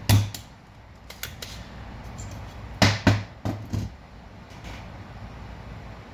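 A few sharp clicks and taps of small hand tools against the printer's circuit board, four close together about three seconds in, over a steady low hum.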